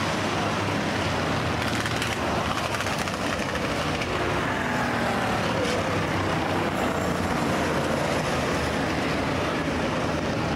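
IMCA Hobby Stock race cars running laps in a feature race: a dense, steady noise of several engines at once. Engine pitch sweeps down near the middle as cars go by.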